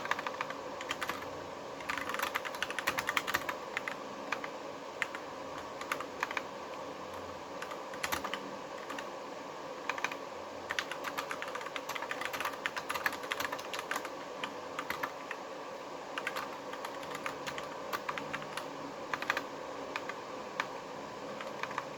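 Akko 3061 mechanical keyboard with Gateron Yellow linear switches being typed on quickly, a fast run of key clicks in irregular bursts with short pauses, over a steady faint background hum.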